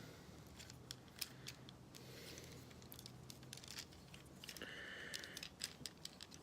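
Faint, scattered clicks with brief scrapes of plastic parts as a Transformers Studio Series Ratchet action figure is handled and its joints are moved during transformation.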